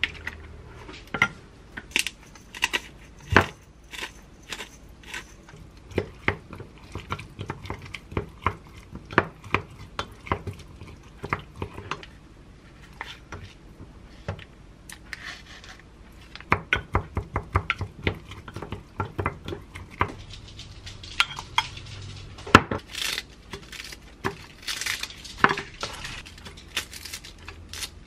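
Wooden spoon stirring a thick mayonnaise sauce in a glass mug, clinking and tapping against the glass in quick runs. Near the end, crisp rustling and tearing of fresh lettuce leaves dropped into a glass container, with a few more taps.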